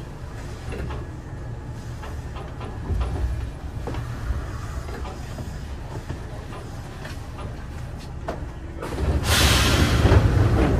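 Kintetsu 8000 series train standing at the platform: a steady low hum with scattered light knocks, then about nine seconds in a sudden loud rush of hissing noise.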